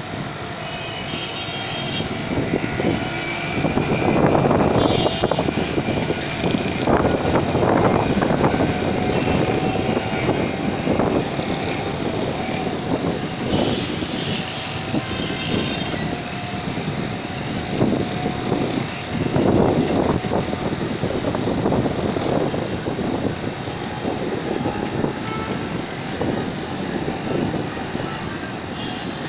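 Wind buffeting the microphone in uneven gusts, over a faint steady drone of distant city noise, with a few faint high chirps.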